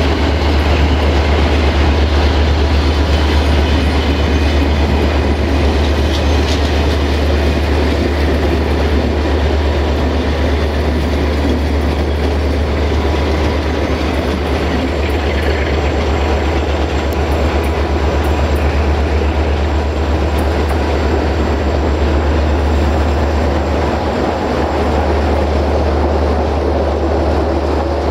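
Sulzer 12LDA28 twelve-cylinder diesel engine of a CFR class 060-DA locomotive running with a loud, steady deep drone.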